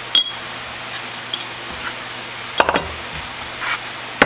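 Small metal bench-vise parts clinking as they are handled and set down: a handful of separate light knocks, the first with a short bright ring, and a quick cluster of clinks a little past halfway.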